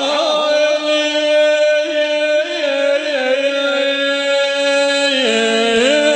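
A man chanting unaccompanied in the Bedouin 'tawr badawi' style, holding one long sung note steady for about five seconds, then dipping and rising in pitch near the end.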